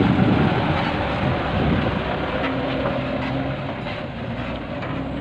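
Mitsubishi Canter dump truck's diesel engine running as the truck pulls away on a dirt track, steadily getting quieter.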